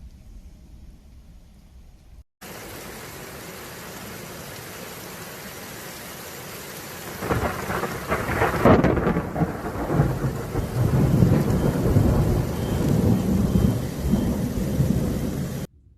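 Thunderstorm: a fading low rumble gives way, after a cut, to steady heavy rain. About seven seconds in, a close thunderclap breaks and rolls on as a long rumble over the rain, then cuts off abruptly near the end.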